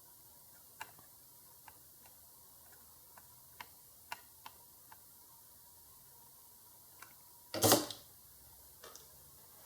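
Scattered light clicks and taps of small tools being handled during circuit-board work, about ten spread over several seconds, then a short, louder scraping rustle near the end.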